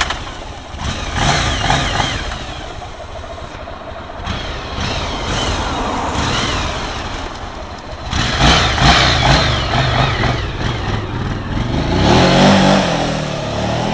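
Motorcycle engine running and revving, swelling louder about eight seconds in and again near the end.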